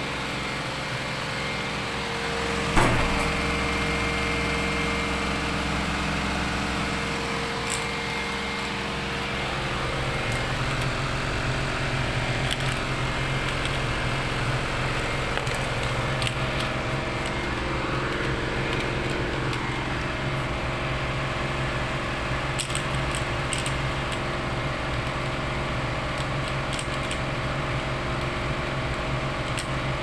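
Washing machine drain pump motor running on test, a steady electric hum with several fixed tones that grows slightly louder about ten seconds in. A single sharp knock about three seconds in.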